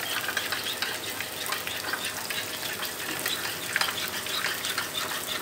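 Tofu frying in a pan of hot cooking oil: a steady sizzle with many small scattered crackles. A spoon stirs shrimp paste in a small ceramic bowl alongside.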